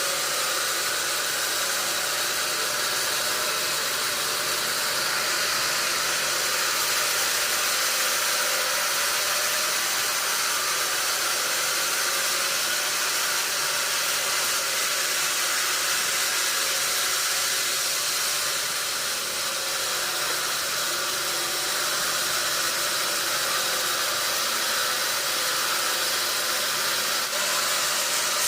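Sawmill saw running steadily while cutting wadang wood: a continuous hiss with a faint hum beneath.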